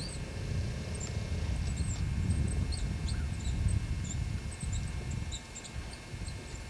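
Outdoor ambience: a low, uneven rumble on the microphone that eases off about five seconds in, with small birds chirping faintly in the background.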